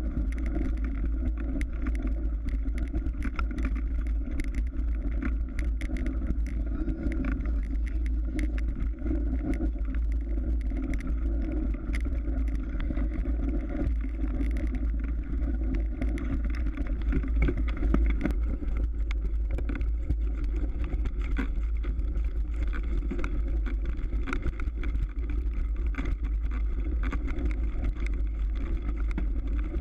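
Mountain bike rolling over hard-packed snow and ice: a steady low rumble with frequent small rattling clicks.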